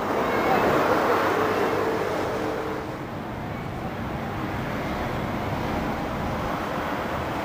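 Steady background noise of road traffic, a little louder in the first two seconds, with a faint hum underneath that fades out.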